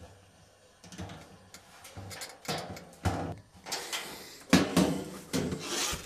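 A freezer's plastic interior evaporator cover panel being handled and fitted back into place: irregular scrapes and knocks against the liner, quiet for the first second and busier over the last few seconds.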